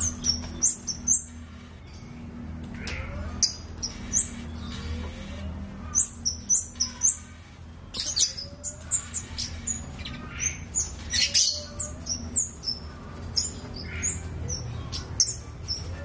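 Caged kemade (flowerpecker) singing: rapid clusters of short, sharp, high chirps, over a steady low hum.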